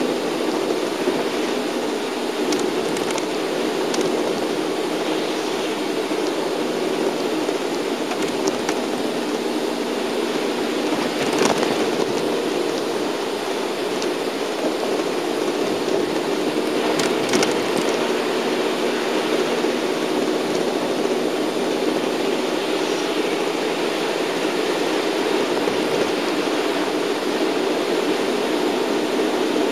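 Steady drone of a shuttle bus's engine and tyres on a wet road, heard from inside the cabin, with a few brief knocks, the clearest near the middle.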